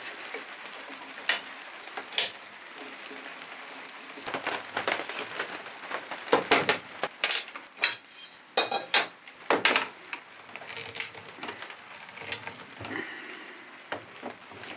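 Metal parts of a mitre saw and hand tools clinking and knocking irregularly as the saw is taken apart, with the busiest handling in the middle.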